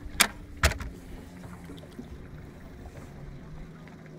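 Two sharp knocks within the first second, over a low steady hum aboard a fishing boat.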